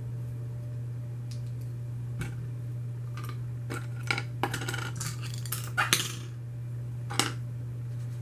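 Plastic Lego pieces clicking and clattering as they are handled, a quick flurry of rattles in the middle and a single click near the end, over a steady low hum.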